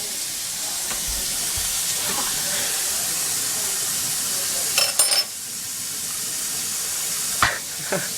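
A steady hiss, with a brief cluster of metallic clinks about five seconds in and a single sharp knock near the end.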